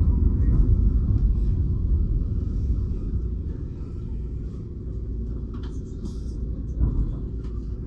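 Low rumble of a bus and its road noise, loudest at first and easing off after a few seconds, with a single thump about seven seconds in.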